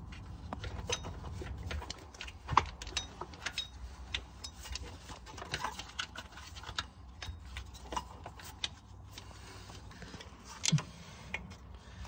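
Scattered small clicks, knocks and rubbing as a hand pushes a car's shifter cable and its rubber grommet through the floor opening, over a low rumble.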